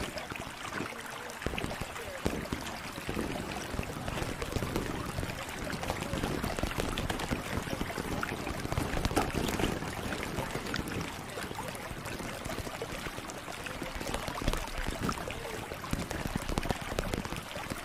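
ASMR audio: a dense, crackly stream of small clicks and soft rustling noise.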